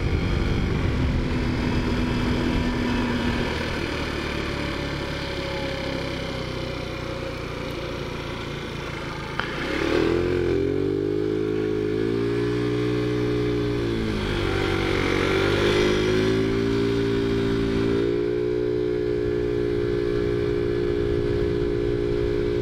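Taotao Zummer scooter's small four-stroke engine, ridden with wind noise. It eases off at first, then after a click about nine seconds in it pulls away with rising revs, dips and climbs again, and settles into a steady cruise for the last few seconds.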